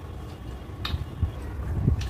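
Close-miked eating: chewing of rice and curry, with a sharp mouth click a little under a second in, over a steady low rumble.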